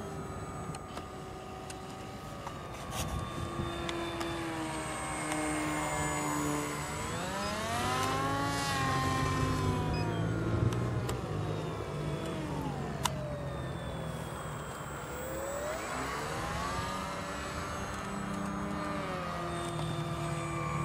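RC model airplane's motor and propeller whining as the plane flies around, its pitch rising and falling as it passes overhead, most clearly twice, around the middle and again a few seconds later.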